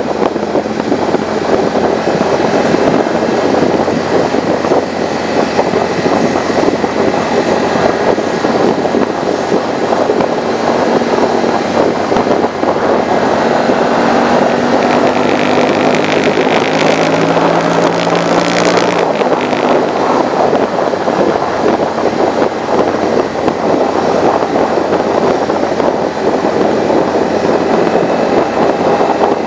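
Motorcycle on the move: steady wind rush over the windscreen mixed with the bike's engine running. About halfway through, the engine note climbs for several seconds, then drops back.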